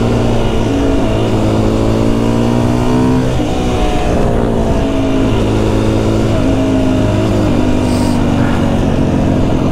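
Husqvarna FE 350 single-cylinder four-stroke enduro engine pulling under way, its pitch climbing and falling back a few times as it works through the gears.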